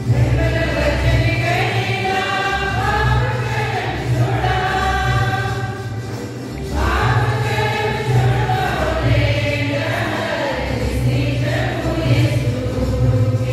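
Church choir singing a hymn with held, gliding notes, over a low accompaniment that pulses on and off.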